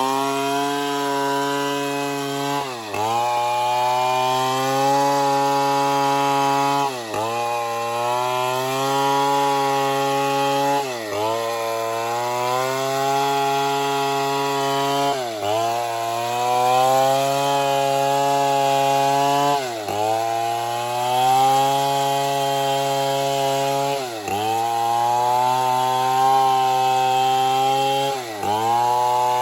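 Stihl MS 070 two-stroke chainsaw running steadily while cutting wood. About every four seconds its pitch dips briefly and recovers.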